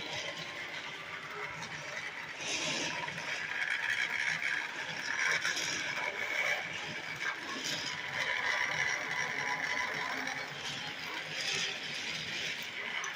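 Battery-powered toy train running on plastic track: a steady gear whir with the clatter of the plastic trucks it pulls, and small clicks.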